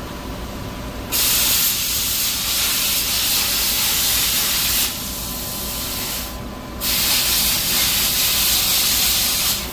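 Plasma cutter cutting metal, a loud hiss of arc and air. It starts about a second in, drops lower near the middle, breaks off briefly, then resumes and stops just before the end.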